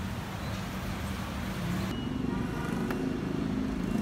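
Steady street traffic noise: a low rumble of passing vehicles under a constant hiss, with no single event standing out.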